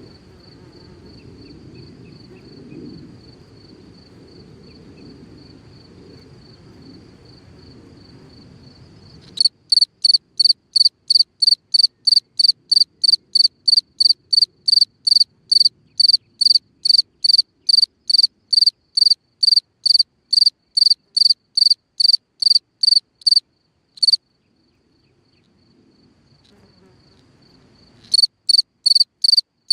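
A cricket calling: loud, high-pitched chirps at about three a second begin about a third of the way in, break off for a few seconds, and start again near the end. Before the loud chirping there is only a fainter, steady trill at the same pitch.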